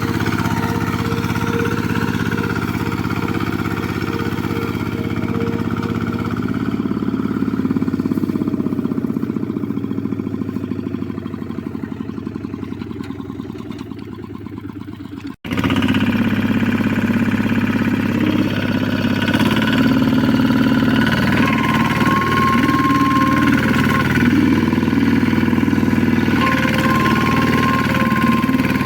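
Engine running steadily; about halfway through the sound breaks off for an instant and resumes louder, with a steady whine over the engine.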